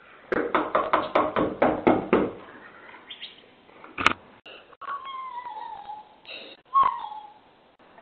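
Rapid knocking on a front door, about ten quick knocks in two seconds. Then a sharp click and a few high, drawn-out falling cries.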